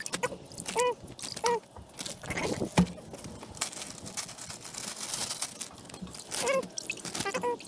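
A plastic zip-top freezer bag crinkling and rustling while wet crappie are handled and dropped into it over a stainless-steel sink. Scattered clicks run through it, with a sharper knock a little under three seconds in and several short squeaks.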